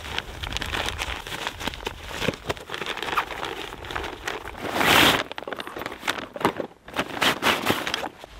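Crinkling and rustling of the ultralight NatureHike backpack's nylon fabric and its inner sack as the pack is handled and opened, with many small clicks and a louder swish about five seconds in.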